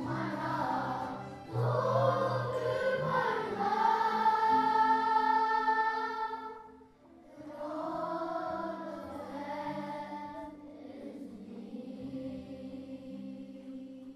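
Music: a choir singing long held notes over a low steady accompaniment, in two phrases with a short break about seven seconds in, fading out near the end.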